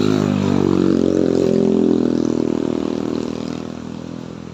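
A vehicle engine pulling under load up a steep climb, holding a steady pitch as it passes close, then fading over the last second or so.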